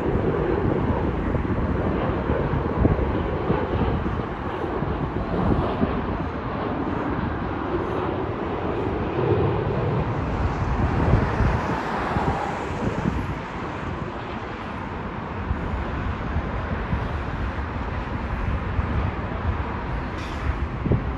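Boeing 737 jet airliner on low final approach, its engine noise swelling and fading around the middle, under heavy wind buffeting on the microphone.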